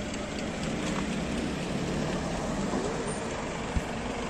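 Roadside traffic noise: a steady rumble of passing vehicles, with one low thump near the end.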